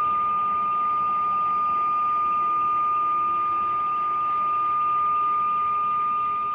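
A continuous high-pitched electronic beep tone holding one unchanging pitch, over faint hiss.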